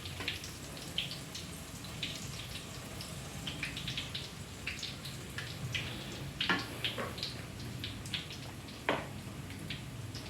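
Hot cooking oil sizzling, with scattered irregular pops and crackles, a few louder ones near the middle and end, as battered anchovies fry.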